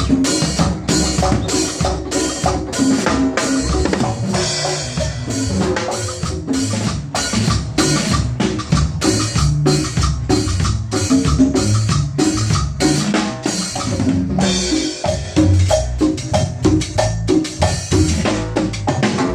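A band playing instrumental music with a drum kit keeping a steady, busy beat over pitched percussion, during a sound check.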